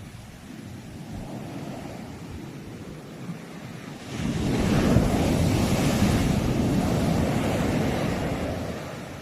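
Sea waves on the shore: a low rush of water that swells about four seconds in into a loud wash of breaking surf, then fades away near the end.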